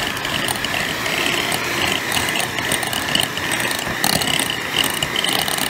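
Electric hand mixer running steadily, its twin beaters whipping softened cream cheese in a glass bowl, with a steady motor whine and occasional clicks.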